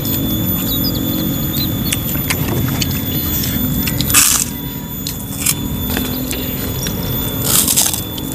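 People eating rice and fried fish by hand: chewing and lip-smacking mouth noises, with two short, louder smacks about four seconds in and again near the end. A steady low rumble lies underneath.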